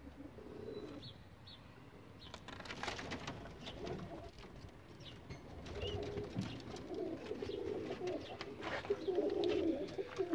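Domestic pigeons cooing: several low, rolling coos, louder toward the end, with a few light knocks and scrapes about a quarter of the way in.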